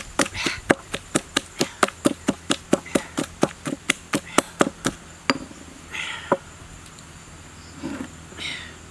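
A pestle pounding chillies in a stone mortar, quick steady strokes about five a second, stopping about five seconds in. A single sharp knock follows about a second later.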